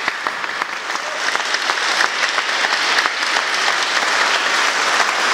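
A large congregation applauding together, a dense, steady clatter of many hands clapping that grows a little louder over the first couple of seconds and then holds.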